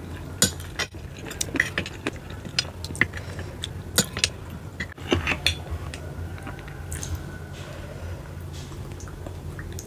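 A metal fork clinking and scraping against a glass dish heaped with sauced spotted babylon snail shells, with a run of sharp clinks through the first half and softer, sparser clicks after.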